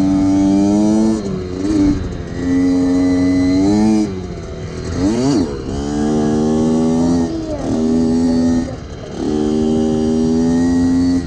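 Small kick-start motorcycle engine running at a steady, moderately high pitch, held for a second or two at a time. Between those stretches it gives short dips and rises as the throttle comes off and on, with a quick sweep up and down in pitch about five seconds in.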